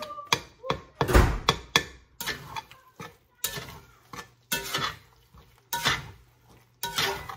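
A metal fork scraping and tapping against a cast iron skillet while scrambling eggs: a run of short clinks and scrapes, about two a second, the loudest about a second in.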